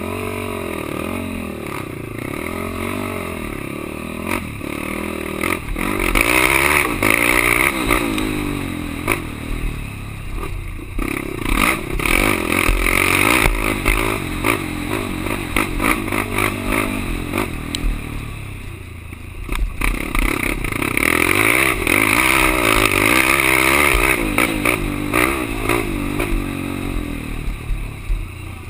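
Racing quad's engine revving hard and easing off again and again, with the clatter and rattle of the machine over rough ground. The engine eases off briefly about two-thirds of the way through, then pulls hard again.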